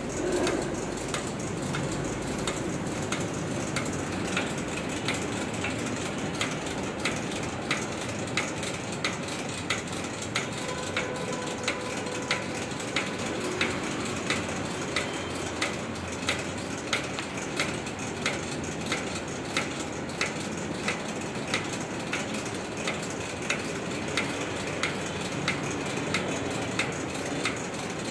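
Factory machinery running steadily, with a regular click about one and a half times a second.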